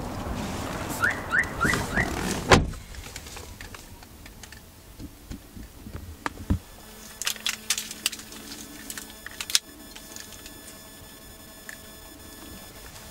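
A car door shuts with one loud thunk about two and a half seconds in, after four short rising chirps. Then small clicks and taps in the quiet cabin, with a faint steady electronic whine from about seven seconds in.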